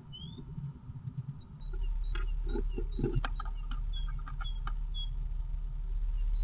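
A great tit scrabbling about inside a wooden nest box, with scratchy clicks and knocks of claws and moss as it works on the nest. Under it a steady low rumble sets in about a second and a half in, with faint short high peeps repeating.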